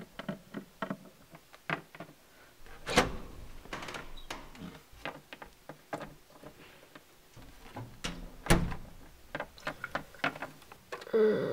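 Plastic Littlest Pet Shop figurines tapping and knocking on a wooden tabletop as they are hopped along by hand: irregular light clicks, with two louder knocks about 3 s and 8.5 s in.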